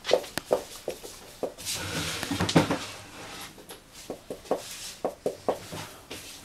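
A dog snuffling close to the microphone, with many scattered short clicks and taps.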